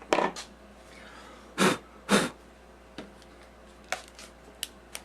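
Two short puffs of breath blown to clear metal shavings off the thread tap and the freshly tapped hole, followed by a series of light, sharp clicks of small metal parts being handled.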